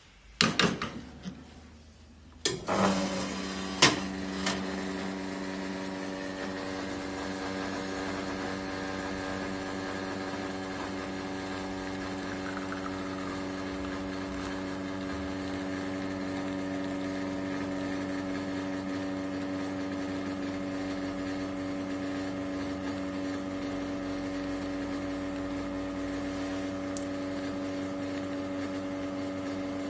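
Espresso machine pulling a shot: a few sharp knocks and clicks in the first few seconds as the portafilter is handled and the brew started, then the machine's pump running with a steady hum.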